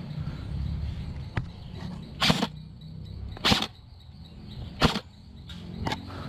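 Airsoft gun shots: three loud, sharp cracks a little over a second apart, with a couple of fainter pops around them.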